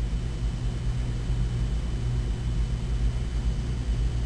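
Steady low hum of background room noise, with no other sound standing out.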